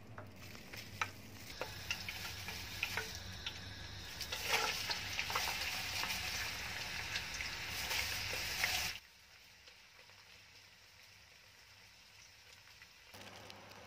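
Sliced onions sizzling as they fry in hot oil in a wok, with scattered clicks as they are stirred. The sizzle grows louder about halfway through, then cuts off suddenly, leaving near silence.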